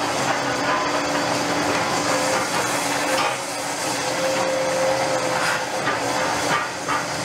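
CAT 330F hydraulic excavator running under load, its diesel engine and hydraulics giving a steady whine that rises slightly in the middle, while its concrete crusher jaw works in foundation rubble. Several sharp cracks and clatters of breaking concrete in the second half.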